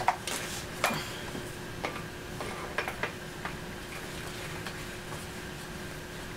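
Several sharp clicks and knocks, about one a second over the first three seconds or so, as a Tippmann Crossover XVR paintball gun fitted with a hopper and air tank is picked up and handled, then only a faint steady hum.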